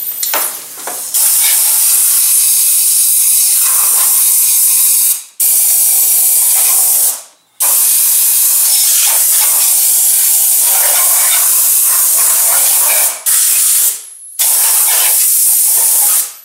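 Compressed-air blow gun hissing in long blasts, blowing grit and gasket debris off a freshly wire-wheeled engine block deck. The blast is cut off briefly four times as the trigger is let go.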